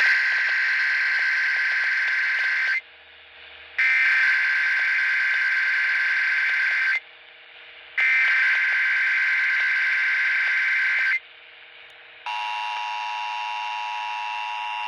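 Emergency Alert System SAME header: three bursts of buzzing digital data tones, each about three seconds long with a second's gap between them. About twelve seconds in, the steady two-tone EAS attention signal starts, opening a required monthly test.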